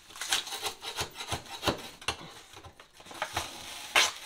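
A metal 5-in-1 scraper scraping and prying old, tough wallpaper off a kitchen wall. It comes as a run of short, irregular scrapes, with one sharper, louder scrape near the end.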